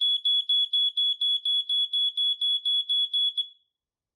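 Smoke detector's piezo sounder on test, very loud, beeping a single high pitch in quick pulses of about four a second. It cuts off about three and a half seconds in when the test button is released.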